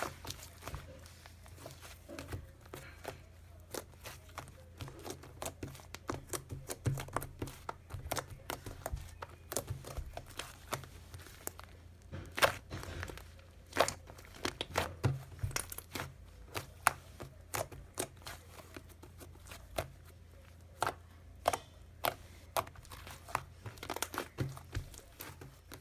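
Hands squeezing and poking a fluffy slime, making irregular crinkling and sticky popping clicks, over a steady low hum.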